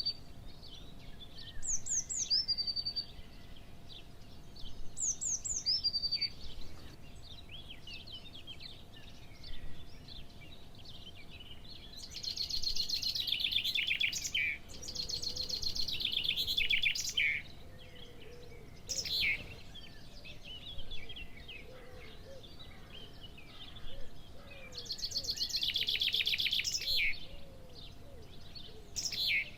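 Wild songbirds singing: a short whistled phrase that falls in pitch repeats three times at the start, then long rapid trills come back several times.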